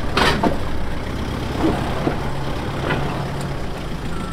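Off-road 4x4's engine running at low speed over rocks, a steady low rumble, with a brief sharp noise about a quarter second in.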